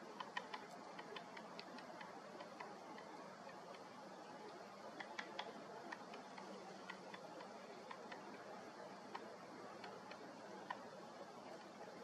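Female great spotted woodpecker pecking at a cone wedged in a crevice of a tree trunk to get at the seeds. The taps are sharp and irregular, with a quick cluster near the start and another about five seconds in.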